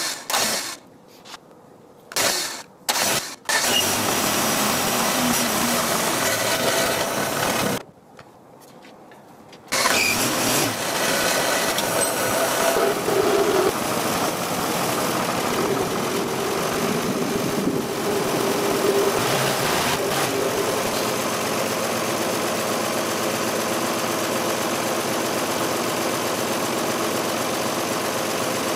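1962 Ford Falcon straight-six being started on its newly fitted electronic distributor and high-voltage coil: a few short bursts of cranking and catching, then it runs for about four seconds and stops. It fires again about ten seconds in and keeps running, its speed wavering for several seconds before it settles into a steady idle.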